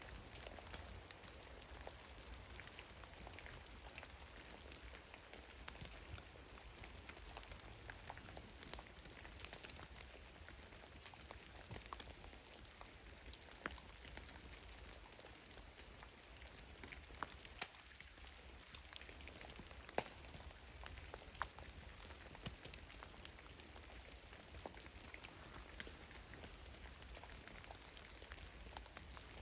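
Meltwater drops falling from heavy melting snow in a forest, irregular soft taps over a faint steady hiss, with a few louder drops scattered through.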